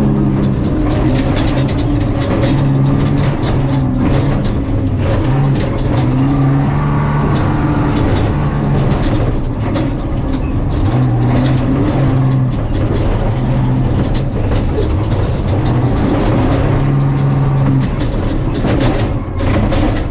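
Jeep Cherokee prerunner heard from inside the cab while driven hard over rough desert dirt. The engine runs under load, its pitch stepping up and down every few seconds as the throttle changes, over constant rattling and knocking from the body and suspension.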